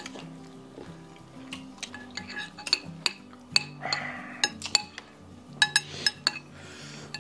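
Metal spoon clinking and scraping against a ceramic bowl again and again as soup is eaten, with a quick run of clinks about five to six seconds in. Soft background music plays underneath.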